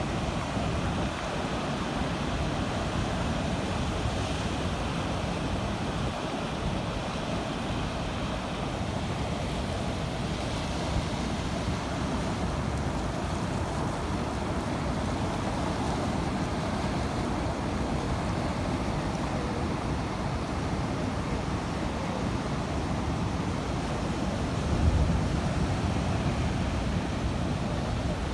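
Sea waves washing steadily, with wind on the microphone and a brief louder low rumble near the end.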